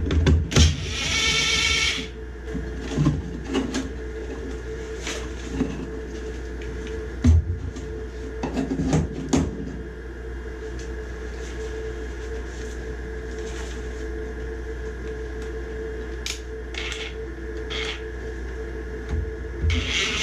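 Hands-on work on a furnace's sheet-metal parts: scattered clicks and knocks over a steady hum, with a short motor whir, like a cordless screw gun, near the start and again at the very end.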